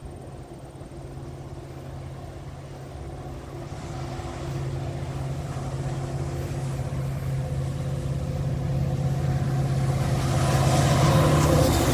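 Diesel locomotives of a freight train approaching on the adjacent track, their engine drone growing steadily louder, with wheel and rail noise building near the end.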